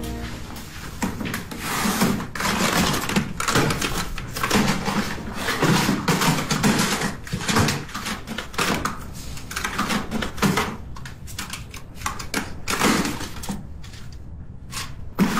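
Rummaging through a bathroom vanity drawer: small boxes and packets rustling and clattering in quick, irregular bursts.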